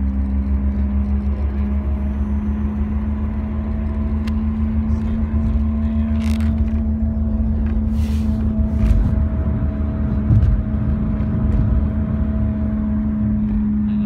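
2006 Scion xB at highway speed with a steady low drone in the cabin, from a worn rear wheel hub bearing, over road and engine noise. A few brief clicks come in around the middle.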